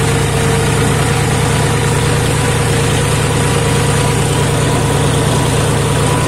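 John Deere tractor's diesel engine running steadily under load, with the wheels churning and splashing through flooded paddy-field mud and water.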